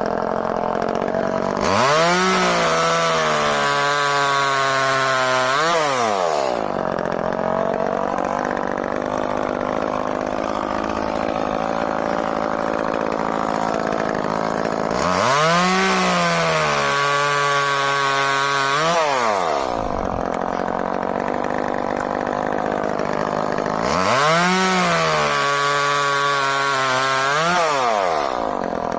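Echo CS-305 30cc two-stroke chainsaw bucking a log: three times the engine revs up to full throttle and holds there, pitch sagging slightly as the chain pulls through the wood, for about four seconds each, dropping back to a lower steady run between cuts.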